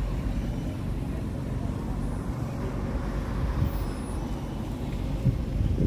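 Road traffic in a city street, a steady low rumble of passing cars and buses, a little louder near the end.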